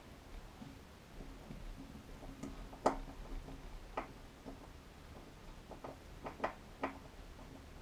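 Screwdriver driving small M3 screws into a stepper motor through its plastic mount: irregular light clicks and ticks, with a sharper click about three seconds in and a few more near the end.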